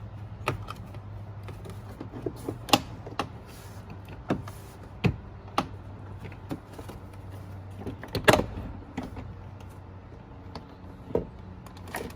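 Plastic interior door trim panel of a Hyundai Elantra being pulled free: scattered sharp clicks and knocks as its clips pop loose and the panel shifts, the loudest a little past eight seconds in, over a steady low hum.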